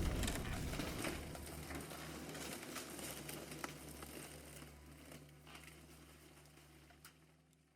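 Fading tail of a bomb explosion sound effect: a low rumble dying away with scattered crackles and small debris pops, fading out about five seconds in.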